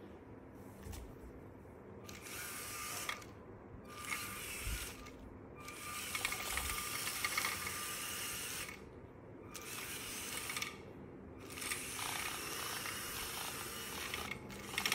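LEGO Mindstorms truck's electric motors running as it drives over a hard floor, in about five spells of one to three seconds that start and stop, beginning about two seconds in.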